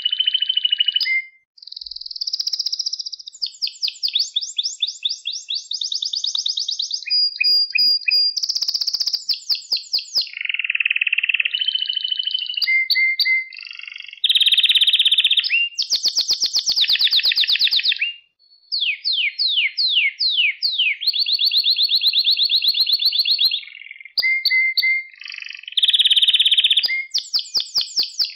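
Male domestic canary singing a long song of fast trills and rolls, switching to a new phrase every second or two, with two brief pauses.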